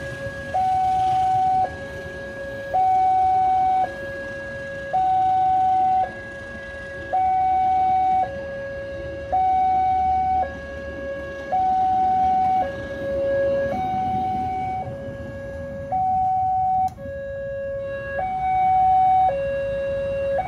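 Railway level-crossing warning siren sounding a two-tone hi-lo alarm, each tone about a second long, over the rumble of a passenger train running past. The siren cuts off suddenly at the end as the crossing opens.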